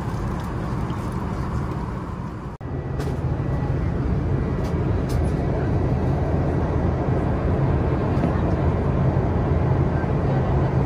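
Steady rumble of an Airbus A380 cabin: air and engine noise heard from a seat aboard the airliner. An abrupt cut about two and a half seconds in, after which the low rumble is slightly louder.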